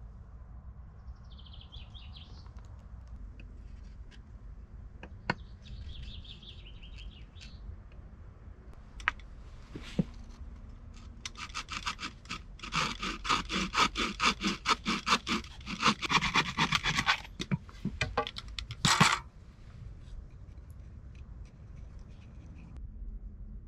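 Bow saw cutting through a green wooden pole: quick back-and-forth rasping strokes, about four a second, for some six seconds. About three seconds after the strokes stop comes one short, loud rasp.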